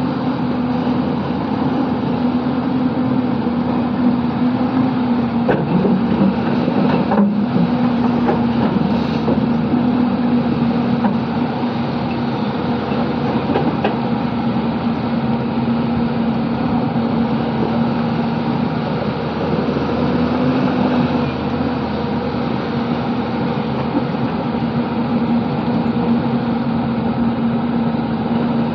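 Hyundai Robex 220-9S crawler excavator's diesel engine running steadily with a constant hum, working its hydraulics as the bucket digs in the riverbed. The pitch dips briefly a few seconds in, then holds.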